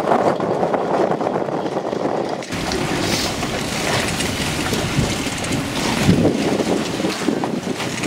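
Strong wind gusting across the microphone, with the rush of wind-driven water around moored boats; a deeper buffeting rumble comes in about two and a half seconds in and carries on, rising and falling with the gusts.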